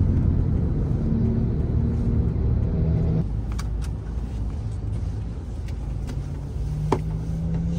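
Car on the road: a steady low rumble of engine and tyres, whose engine note shifts about three seconds in, with a few faint clicks.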